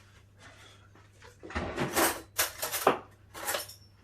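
Quiet at first, then from about a second and a half in, a run of short clatters, knocks and scrapes, as of kitchenware being handled on a counter.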